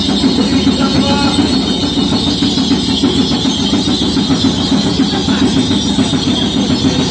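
Rapid, steady drumming accompanying a Minahasan Kabasaran war dance, a dense fast beat with little change in level.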